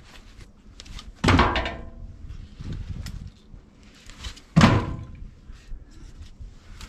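Split firewood dropped into a metal wood chute. Two loud knocks, a little over a second in and again about three seconds later, each with a short metallic ring, and lighter knocks and scrapes between them as the wood slides down.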